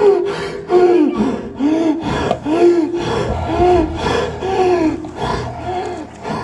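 A person's voice making rough, pitched cries that rise and fall, about two a second. A steady low hum runs underneath from about two seconds in.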